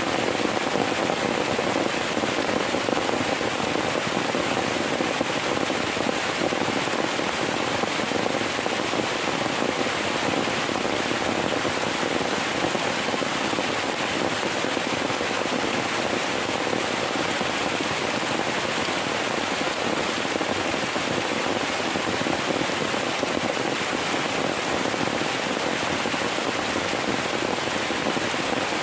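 Heavy rain falling steadily: a dense, even downpour.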